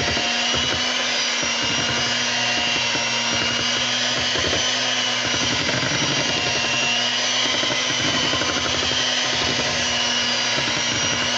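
Electric hand mixer running steadily at a constant speed, a continuous motor whine as its beaters whip pound cake batter in a stainless steel bowl.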